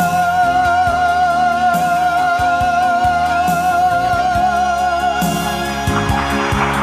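A male singer holds one long note with an even vibrato over a recorded backing track, breaking it off about five seconds in. The backing music carries on and turns brighter near the end.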